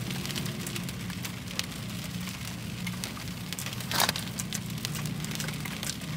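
Light rain ticking irregularly on the car's roof and windows over a steady low hum from the car, with a short breathy sound about four seconds in.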